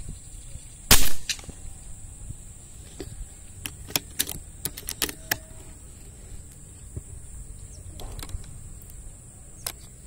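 A single rifle shot from a scoped hunting rifle about a second in, followed a few seconds later by a quick run of sharp clicks and knocks, with a steady high hiss underneath.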